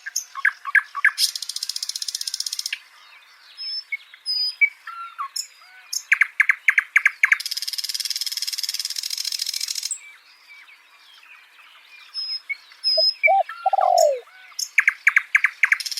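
Songbirds singing: quick runs of evenly spaced chirps, long high buzzy trills lasting a couple of seconds each, and scattered short whistles, with a lower falling note near the end.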